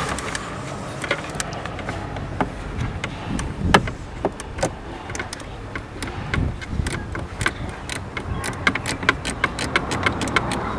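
Plastic intake and air box parts being handled and fitted by hand in a car's engine bay: scattered clicks and knocks, one louder knock about four seconds in, and a quicker run of clicks near the end.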